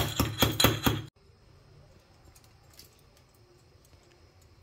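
Steel pestle pounding black peppercorns in a small steel mortar: quick metallic strikes, about five a second, with a ringing tone. They cut off abruptly about a second in, leaving faint room tone.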